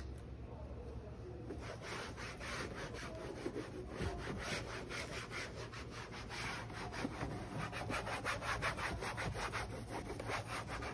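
Microfiber cloth rubbing back and forth over a car's plastic interior door panel, cleaning it, in quick even strokes of about three to four a second.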